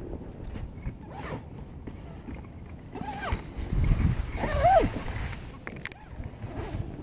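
Wind rumbling on the microphone, with some rustling. About three seconds in and again at four and a half seconds come two short calls that glide up and then fall.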